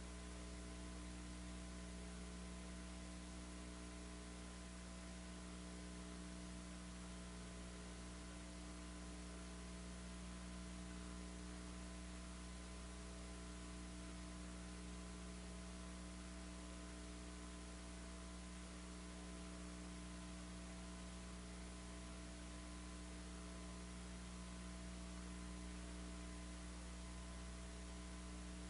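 Steady electrical mains hum with a faint even hiss, unchanging throughout; no speech or other events.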